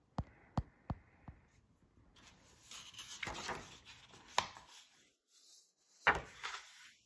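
Pages of a hardcover Golden Book picture book being turned and pressed flat by hand. A few light taps come in the first second or so, then paper rustles and slides against paper, and a sharper slap of the page comes about six seconds in.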